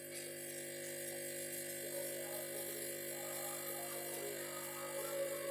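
A steady electrical hum made of several fixed tones from workbench electronics. Faint irregular rubbing or handling sounds grow louder near the end.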